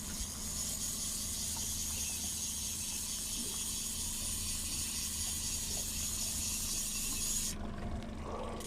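Boat engine running steadily under way, a low even hum, with a steady hiss over it.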